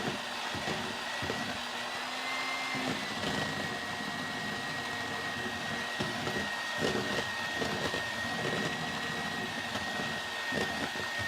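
Electric mixer beating eggs with a steady motor whine, while powdered sugar is added a little at a time; the pitch lifts slightly about two seconds in, then settles.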